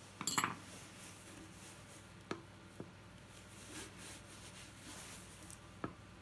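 Workbench handling noises: a short clatter of tools about a quarter second in, then three light, sharp knocks and clicks spread apart, as tools and the motor's metal-and-plastic casing are handled on a plywood bench.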